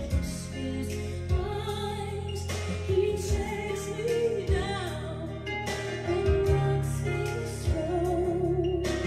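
A soul-pop record played from vinyl through JBL 4312SE speakers and picked up close by a phone: a woman's lead vocal with a wide vibrato over a steady bass line and regular drum hits.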